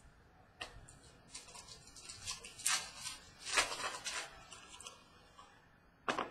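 Trading cards rustling and scraping as they are handled and sorted, in uneven bursts, then one sharp click near the end.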